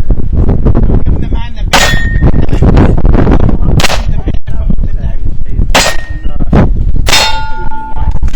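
Four 9 mm pistol shots from a Glock 34, spaced about two seconds apart. Most are followed by a short metallic ring, like a steel target being hit. A heavy low rumble runs underneath.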